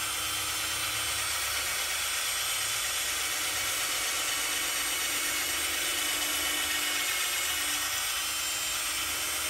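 Cordless drill running steadily at an even speed as a larger bit bores out the broken 8 mm exhaust-stud hole in a VW 1600 dual-port engine's aluminium cylinder head, opening it up before it is tapped.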